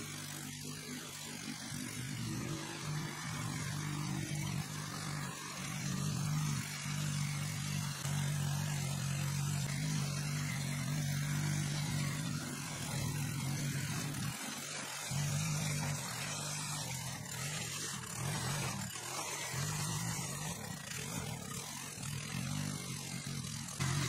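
Small engine of a walk-behind rotary tiller running under load as its tines churn through grassy soil, its hum swelling and dipping as it works, with a brief drop about fourteen seconds in.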